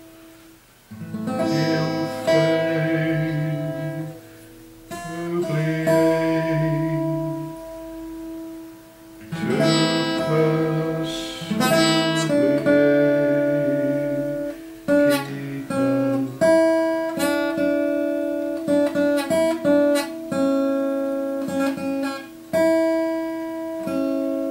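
Acoustic guitar playing: strummed chords left to ring out, then, from about halfway, a quicker run of single plucked notes.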